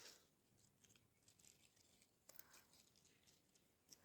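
Near silence: room tone, with two faint soft ticks a little over two seconds in.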